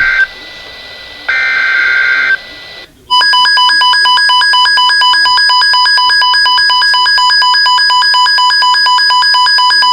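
Emergency Alert System broadcast alert: the tail of one SAME digital header burst and then a second burst about a second long, harsh rapidly switching data tones, followed about three seconds in by the loud, steady warning attention tone near 1 kHz with a fast pulsing flutter. It signals that a new weather warning is about to be read.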